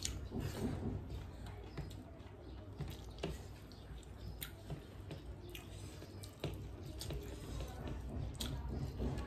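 Eating sounds: chewing, and fingers squishing and mixing rice on a plate, with scattered small clicks.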